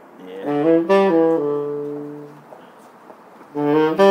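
Saxophone played solo: a short phrase of quick notes that settles on a long held low note fading away, then after a pause of about a second a new phrase begins near the end.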